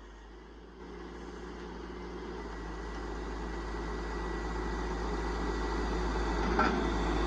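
Heavy logging truck's diesel engine running and growing steadily louder, with a faint steady whine above it and a brief clatter near the end.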